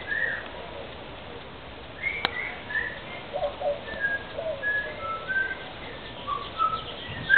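Whistling: short clear notes, and from about four seconds in a run of them stepping down in pitch. A single sharp click about two seconds in.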